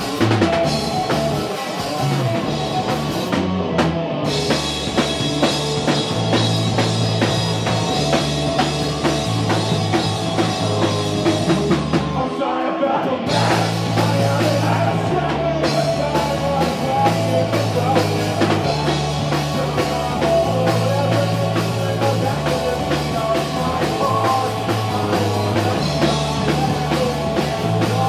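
A rock band playing live: electric guitars and a drum kit with a driving low riff, dropping out in the low end for about a second just before halfway, then crashing back in.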